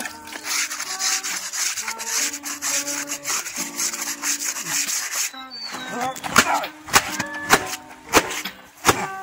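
Stiff hand brush scrubbing trousers laid on a stone, a steady scrubbing noise over background music. About five seconds in the scrubbing stops, and a run of sharp knocks follows.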